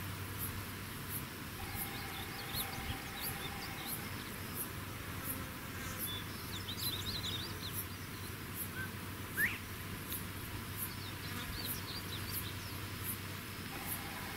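Open grassland ambience: a steady hiss with a regular high-pitched insect ticking, and scattered short high chirps, one louder rising chirp about nine seconds in.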